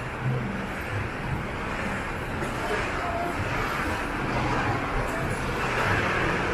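Street ambience: a steady hum of road traffic with faint, indistinct voices.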